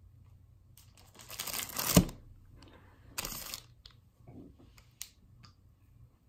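Plastic snack wrapper crinkling and rustling in two bursts, the first ending in a sharp thump, then a soft bite into a glazed blueberry donut a little after the middle.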